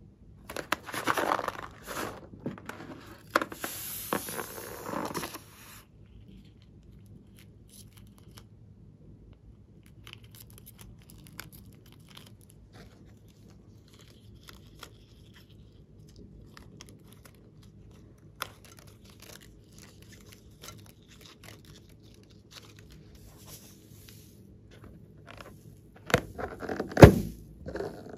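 Hands handling and stretching rubber balloons: rustling and crinkling for the first few seconds, then faint scattered clicks, and two louder bumps near the end.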